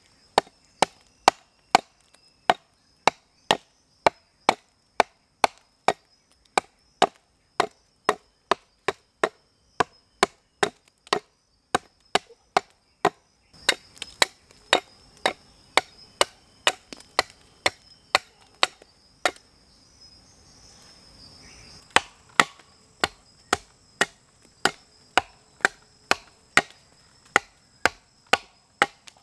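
Wenzel hatchet chopping into a log, hewing a flat face with sharp, steady strikes about two to three a second. The chopping pauses for about two seconds about two-thirds of the way through, then carries on at the same pace.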